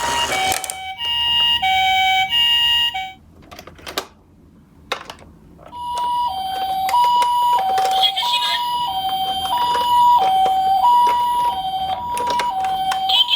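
Japanese-style two-tone "pee-po" ambulance siren, stepping between a high and a low tone. A short, quicker burst comes first. After a quiet gap with a few small clicks around four to five seconds in, the siren resumes and steps steadily high and low about once a second to the end.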